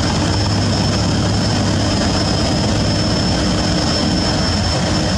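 Steady low drone of a river passenger launch's engines running at speed, over a constant hiss of rushing water and wind.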